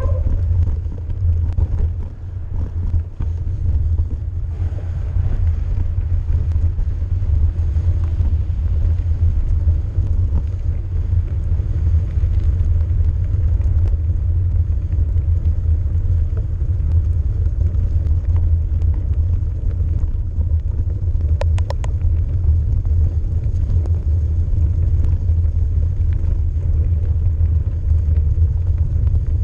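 Steady low rumble of a mountain bike rolling along a snowy trail: tyre and frame vibration picked up by a GoPro mounted on the bike. A brief rattle of a few clicks comes about two-thirds of the way in.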